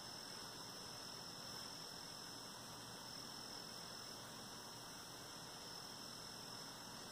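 Faint, steady hiss with a thin high whine: the recording's background noise, with no distinct needle clicks or other sounds standing out.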